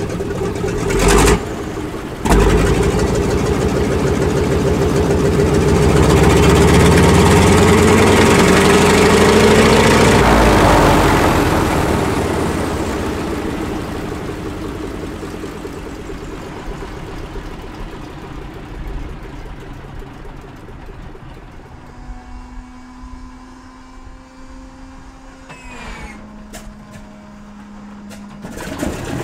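Lisunov Li-2's Shvetsov ASh-62IR nine-cylinder radial engine running on the ground with its propeller turning. It revs up, rising in pitch and loudness for a few seconds, then is throttled back and drops to a quieter, lower idle. Near the end a steady hum and a few sharp clicks come in.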